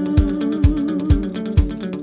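Background music with a steady beat, about two beats a second, and a long held note that wavers in pitch through the first half.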